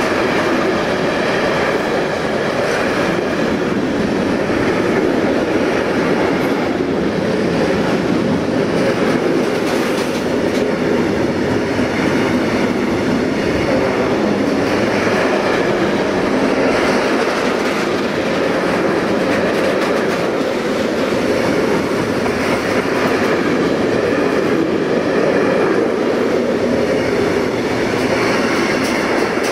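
Freight train running past, its wagons rattling and wheels clacking over the rail joints in a steady, unbroken stream of noise.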